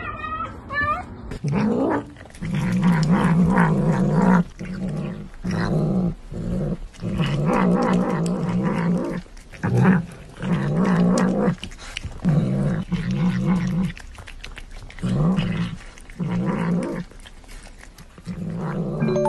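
Tabby cat growling while it eats, in about a dozen low bouts of a second or two each with short breaks between them.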